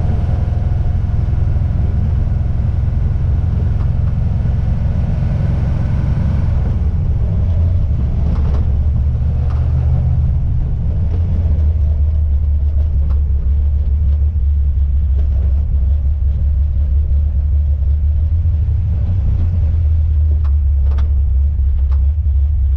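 Car interior during a slow drive: a steady low rumble of engine and road noise, with several short faint clicks scattered through the second half. These clicks would be the rattle from the rear of the car that happens over bumps, whose cause is not yet found; the owner suspects the coilovers.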